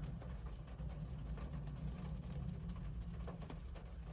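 Faint steady low hum with a few soft clicks.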